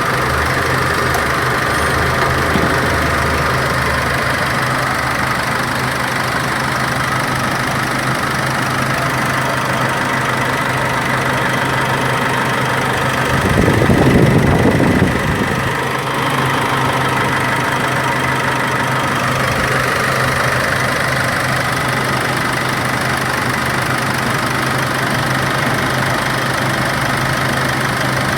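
Nissan YD25DDTi 2.5-litre four-cylinder turbodiesel idling steadily while its cooling system is burped of air. About halfway through, a louder rushing noise swells for a couple of seconds and then drops away.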